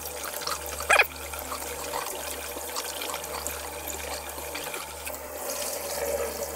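Water sloshing and trickling with small splashes as raw sushi rice is swished by hand in a pot of cold water, with one sharper knock about a second in. This is the rinsing stage that washes the milky starch off the rice.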